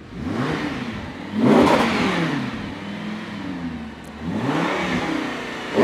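Car engine revved in the shop, blipped up and let fall back three times, the second rev the loudest.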